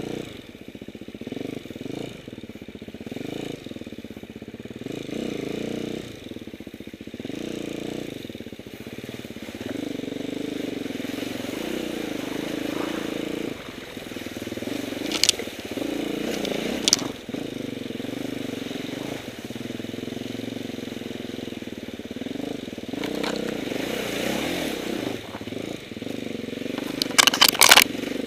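Enduro motorcycle engine running under load, revs rising and falling as the bike rides along a wet, rocky trail. Sharp knocks cut through about halfway in, once and again a second and a half later, and a quick cluster of them comes near the end.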